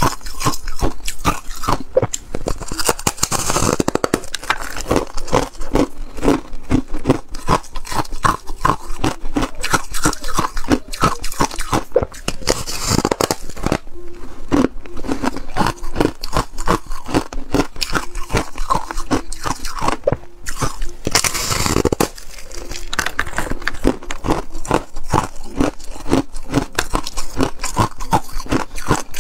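Foam ice being bitten and chewed: a dense, continuous run of crisp crunches, with louder crunching about 3, 13 and 21 seconds in.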